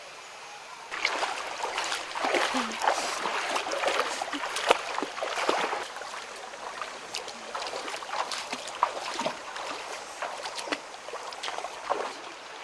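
Bare feet wading through a shallow, rocky stream: irregular splashing and sloshing of water that starts about a second in, busiest over the next few seconds and then thinning out, over the flowing stream.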